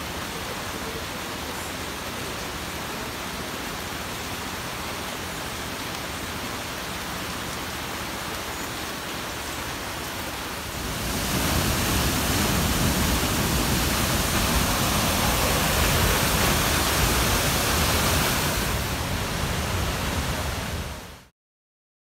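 Steady hiss of rain and distant falling water, then, about halfway through, the louder, fuller rush of a waterfall close by. The sound cuts off just before the end.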